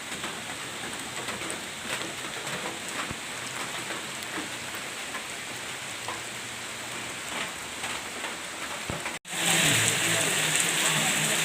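Steady rain falling, with scattered sharper drops striking close by. About nine seconds in it cuts out for an instant and returns louder and heavier.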